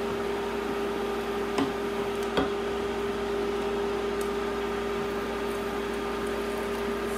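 Steady hum of a kitchen appliance, two low tones over a hiss, with a wooden spoon knocking against a stainless steel saucepan twice about two seconds in as vegetables are stirred.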